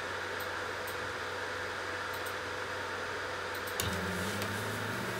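Steady fan hiss from a 10 W blue diode laser cutter. About four seconds in there is a click, and the gantry's stepper motors start a low hum that steps in pitch as the laser head begins its cutting pass.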